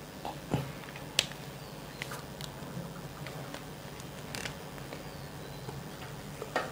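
Quiet room with a low steady hum and a few scattered light clicks and taps, the sharpest about half a second and a little over a second in.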